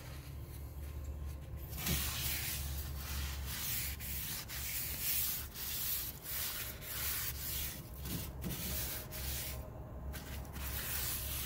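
Paper towel rubbed back and forth over the hot, oiled smooth side of a cast iron griddle, a scratchy rubbing in many short strokes. It starts about two seconds in and eases off near the end.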